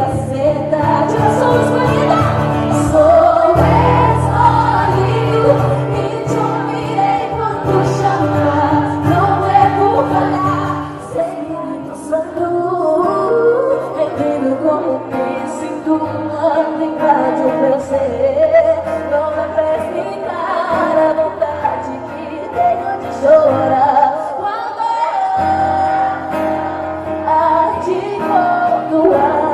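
Christian worship music: singing over a band with held bass notes.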